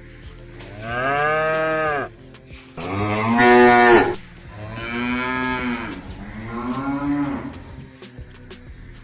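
Cattle mooing: four long, drawn-out moos one after another, the second the loudest.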